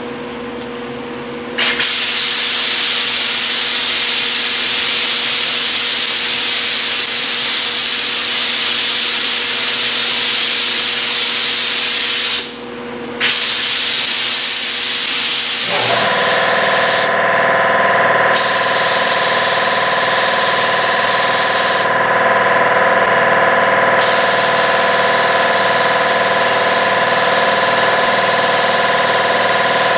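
Gravity-feed paint spray gun hissing as a light first coat goes onto a plastic bumper cover, with the trigger let off briefly about 12 seconds in. About 16 seconds in a steady machine hum with several held tones starts under the spraying, and the spray stops twice more for a second or two.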